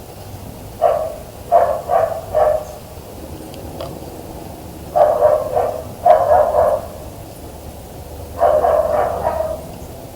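A dog barking in three bouts of short barks: four barks about a second in, a run of barks around the middle, and another run near the end.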